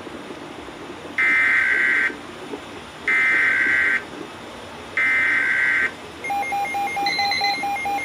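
Weather radio sounding an emergency alert: three one-second bursts of the digital SAME alert header, about two seconds apart, then a rapidly pulsing alarm beep from about six seconds in, signalling an incoming weather bulletin.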